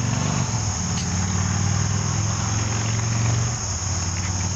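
Insects chirring steadily as a continuous high-pitched drone, over a low steady hum.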